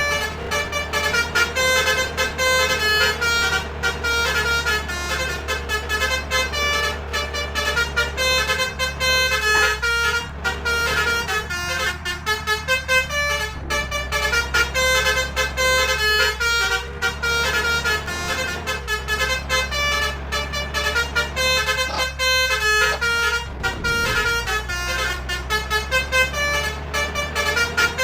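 Telolet multi-tone musical horn (Basuri trumpet horn) playing a fast, unbroken run of short notes, a tune on the horn, over a steady low engine hum.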